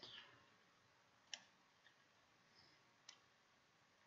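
Near silence with a few faint computer-mouse clicks, the clearest about a second in and about three seconds in.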